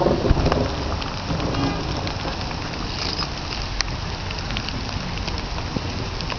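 Steady rain falling during a thunderstorm, with scattered drops ticking, and the tail of a thunder rumble dying away in the first second or two.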